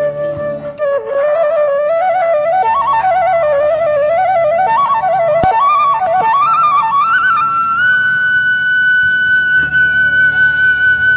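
Background music: a solo flute melody with quick ornamental turns over a soft low accompaniment. It climbs gradually and settles into a long held high note for the last few seconds.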